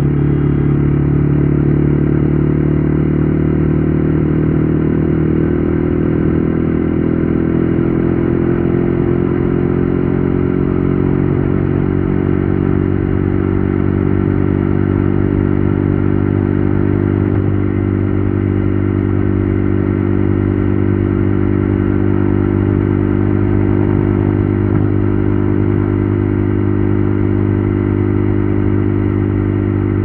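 KTM Duke 390 Gen 3's single-cylinder engine running through an Akrapovic exhaust under way. Its note rises slowly as the bike gathers speed over the first ten seconds or so, then holds steady at cruising speed.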